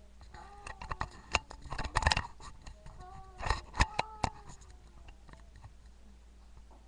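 A run of sharp clicks and taps, bunched in the first four seconds and thinning out after, over a faint voice in the background.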